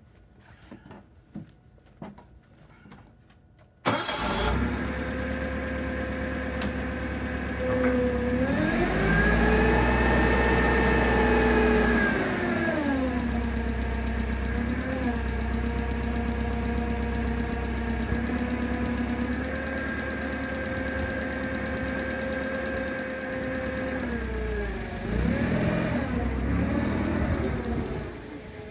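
2001 TCM FG20 forklift's Nissan H20 four-cylinder LPG engine starting at once about four seconds in, after a few faint knocks, then idling. About eight seconds in it revs up and holds for several seconds before dropping back to a steady idle. Near the end its speed rises and falls again as the forklift drives off.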